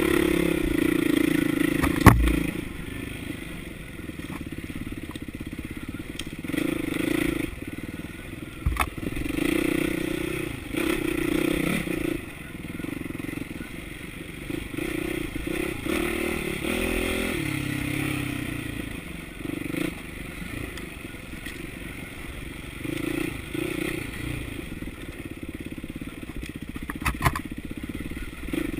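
Yamaha dirt bike engine revving up and dropping back in short throttle bursts over rocky ground, with clattering and knocks from the bike. A sharp knock about two seconds in is the loudest sound, with a few smaller knocks later.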